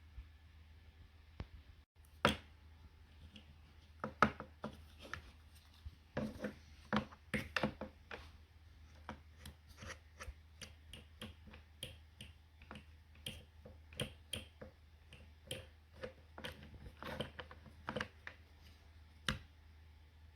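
Irregular clicks, taps and scrapes of hand tools and small parts being handled, busiest from about four seconds in, over a steady low hum.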